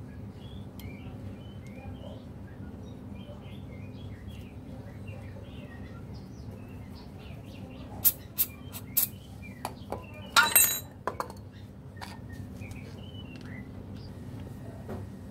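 Small birds chirping over and over over a steady low hum. About eight seconds in comes a run of sharp metallic clinks and knocks from tools and parts being handled, the loudest a ringing clink around ten and a half seconds.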